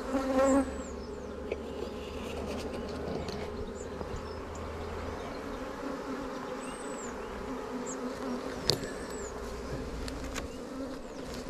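Steady hum of a honeybee colony flying around an open hive, with one sharp click about three-quarters of the way through.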